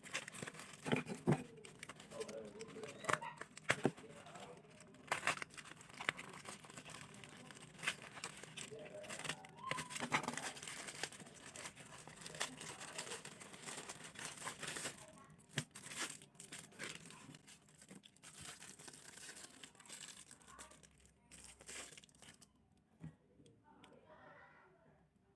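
Plastic packaging being crinkled and torn open by hand, with dense, irregular crackles. It quietens about three seconds before the end.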